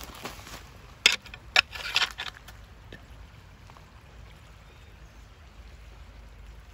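Footsteps crunching on loose creek gravel: a few sharp steps about a second in, then quieter.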